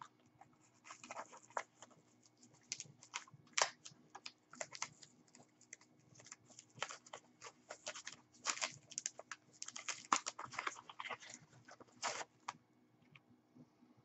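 Soft plastic packaging crinkling and rustling in irregular crackles, with light clicks of a hard plastic coin slab being handled, as a graded coin is unwrapped from its sleeve. The crackling stops near the end.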